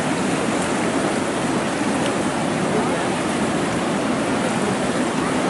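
Fast-flowing floodwater from a lake filled by heavy rain, rushing steadily around trees and driftwood.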